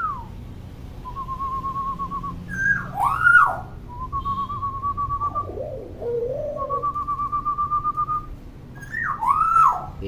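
Common hill myna whistling: several drawn-out wavering whistles held at one pitch, broken by sharp up-and-down whistled notes, about three seconds in and again near the end, with a lower warbling phrase just past the middle.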